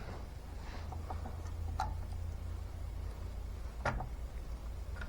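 Two sharp clicks about two seconds apart, with a few fainter ticks, over a steady low hum.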